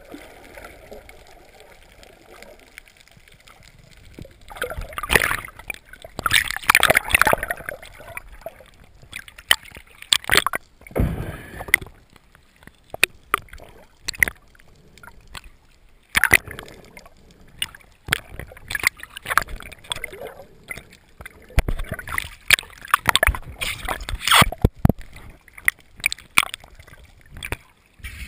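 Water splashing and gurgling around a GoPro camera's housing as a snorkeler swims and the camera moves underwater and breaks the surface. It comes in irregular surges, with many sharp clicks and knocks.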